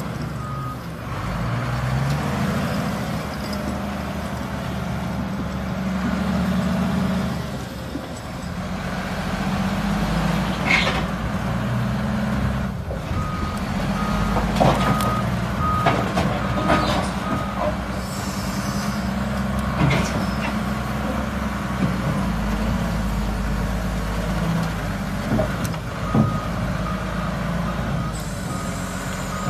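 Wheel loader's diesel engine running steadily under the load of a heavy marble block, heavy enough to lift the machine's rear. Its reversing alarm beeps in a run of short even beeps about halfway through and briefly again near the end. Several sharp metallic knocks come through along the way.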